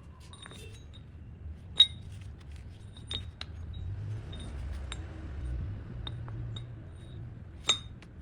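Metal striking metal: a series of sharp, ringing clinks and knocks, two of them much louder than the rest, about two seconds in and near the end, over a steady low rumble.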